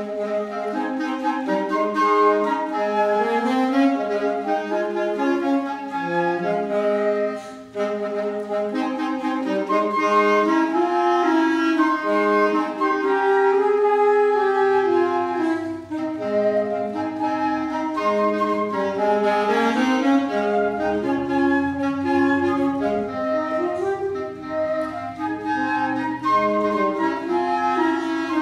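Woodwind trio of flute, clarinet and saxophone playing a slow piece together in close harmony, with a brief break in the sound about seven and a half seconds in.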